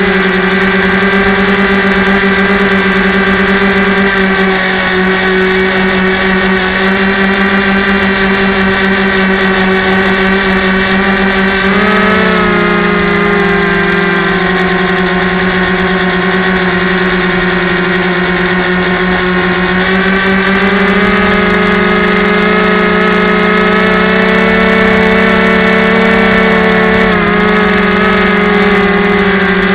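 Small electric motor and propeller of a Yellow Bee RC airplane heard from the onboard camera in flight: a loud, steady buzzing whine. The pitch drops slightly about twelve seconds in, rises again around twenty seconds, and dips briefly near the end as the throttle changes.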